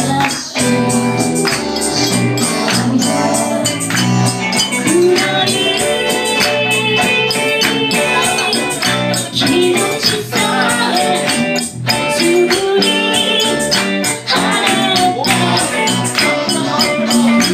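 Live band music: ukulele and electric guitars strummed over a keyboard, with singing and a steady percussion beat.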